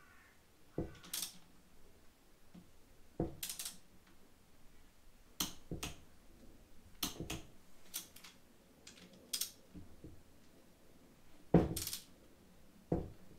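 Wrench and socket clicking and clinking as the cylinder bolts of a two-stroke Yamaha DT engine are torqued down in a star pattern. It is a string of about a dozen separate sharp metallic clicks, some in quick pairs, the loudest near the end.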